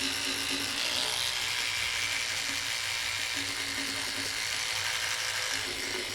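Electric toothbrush buzzing while brushing teeth, a steady buzz with a scrubbing hiss; its low hum fades out and comes back a couple of times.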